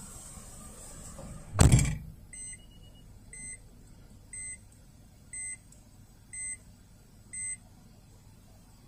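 A loud thump, then six short electronic beeps about a second apart.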